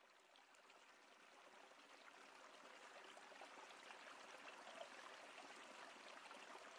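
Faint river water flowing and babbling, fading in gradually.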